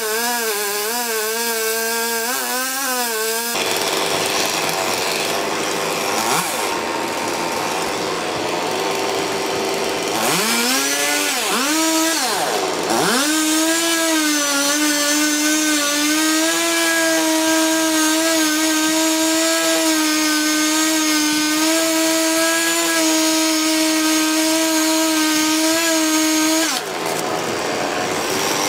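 Chainsaw cutting through a thick tree trunk. The engine note wavers at first, revs up and down about halfway through, then holds a steady high pitch through a long cut and stops near the end.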